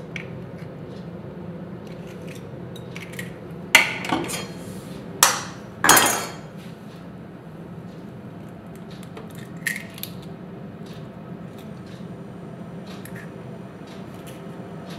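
Eggs being cracked and separated: sharp knocks of eggshell on a bowl rim and clicks of shell halves, three loud ones about four to six seconds in with the last the loudest, then a few lighter clicks. A faint steady hum runs underneath.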